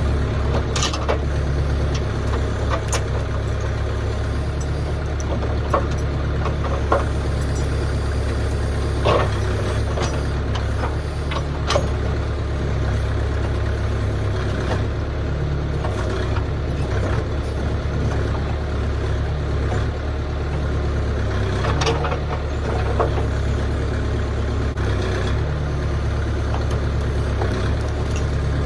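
Engine of the machine unloading logs running steadily, with scattered knocks and clunks over the drone.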